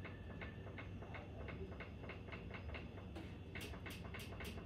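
Faint, regular ticking, about three to four ticks a second, becoming sharper and louder in the last second or so.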